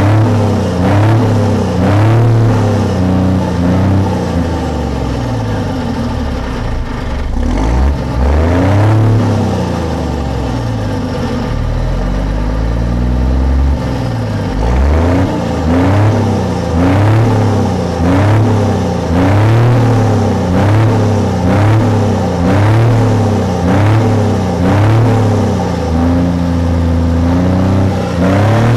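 Scania 124L 440's 12-litre straight-six diesel revved repeatedly while standing, heard close to its exhaust outlet: quick blips up and back down about once a second, with a spell in the middle where it falls back to a low idle before the blipping starts again.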